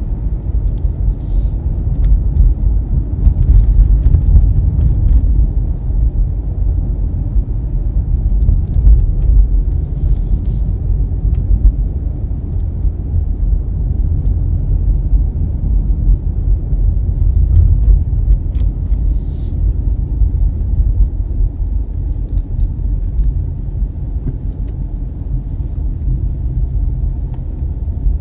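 Car driving along a road, heard from inside the cabin: a steady low rumble of engine and tyre noise that swells and eases a little.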